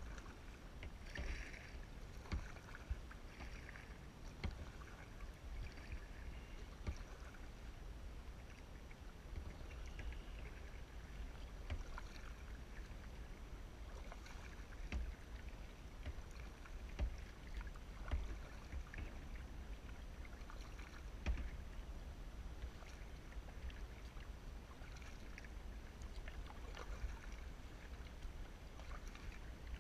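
Kayak paddling on calm water: the paddle blades dipping and dripping, with scattered small clicks and knocks, over a steady low rumble.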